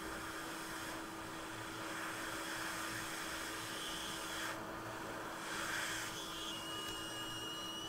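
Hot air rework station blowing a steady hiss of air over an iPhone 8 logic board, reflowing the solder under a newly placed MOSFET. The hiss dips briefly twice in the second half, over a faint steady hum.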